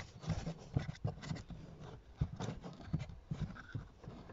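Fingers rubbing and scratching on the felt-covered plastic trim cover under a car's glove box, with scattered small clicks and taps as its fastening clips are worked loose.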